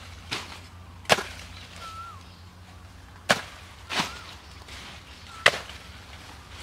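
A sword blade chopping into a banana plant's trunk: five sharp strikes, irregularly spaced, the loudest about a second in and near the end. A bird chirps faintly between strikes.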